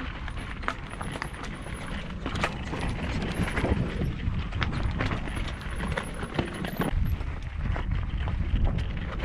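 Mountain bike riding over rough singletrack: tyres crunching on loose stones, with the bike rattling in irregular sharp clicks and knocks over a steady low rumble.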